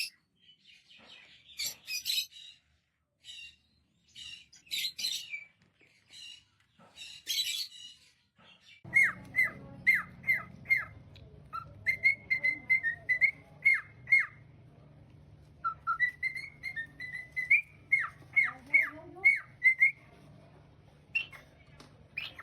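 Pet parrot squawking harshly in short clusters. About nine seconds in, the sound changes to a long run of quick, sharp whistled chirps that each drop in pitch, over a steady low hum.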